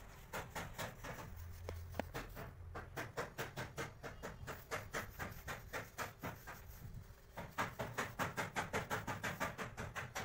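Paintbrush scrubbing paint onto the rubber tread of a truck tyre in quick back-and-forth strokes, about four to five a second.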